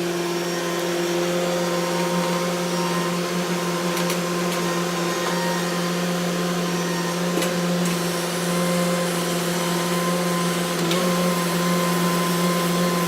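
A running motor droning steadily at one constant pitch, with a few faint clicks.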